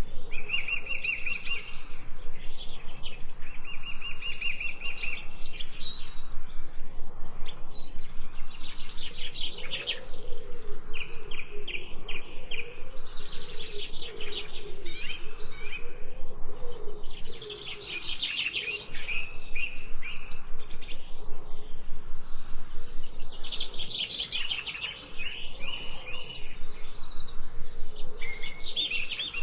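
Several songbirds chirping and singing together: rapid repeated notes and short trills, one phrase after another, with a lower wavering call about a third of the way in.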